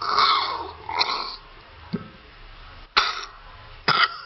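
Short raspy cough-like bursts, roughly one a second, which the uploader takes for the strange sounds of a guppy eating algae.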